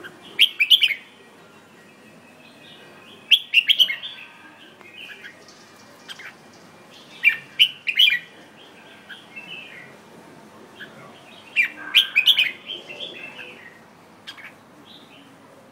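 Caged red-whiskered bulbul singing: four loud, short bursts of song a few seconds apart, with quieter twittering between them.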